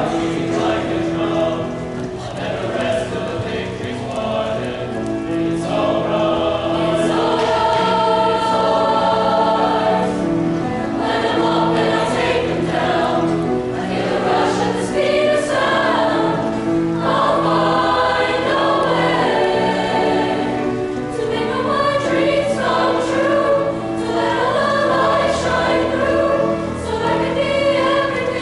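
Mixed choir of men and women singing in harmony, accompanied by piano.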